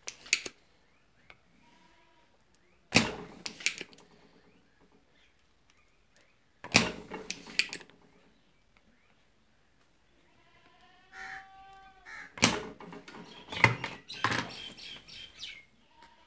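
Spring-loaded desoldering pump (solder sucker) firing with a sharp snap about four times, a few seconds apart, each snap followed by lighter clicks as it is re-cocked, sucking solder off the pads of old keypad push-button switches on a circuit board.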